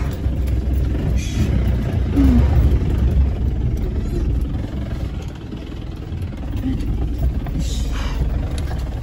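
Vehicle engine and road noise, a steady low rumble, with two brief hissing swishes, one about a second and a half in and one near the end.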